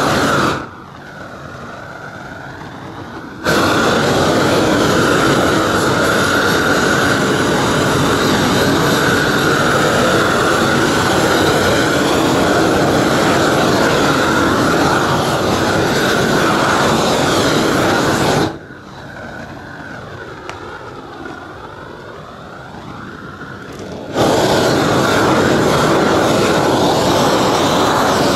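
Propane roofing torch burning at full flame, a loud, steady rushing hiss, used to heat and melt down a roll of granulated modified-bitumen torch-down roofing. Twice the noise falls to a much quieter level for several seconds, once about a second in and again about two-thirds of the way through, before it comes back at full strength.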